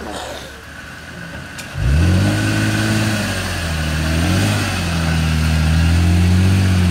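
Second-generation Toyota Tacoma's engine, near idle at first, revs up sharply about two seconds in and holds high revs. The note dips and climbs again as the truck pulls up a slick, muddy hill under load.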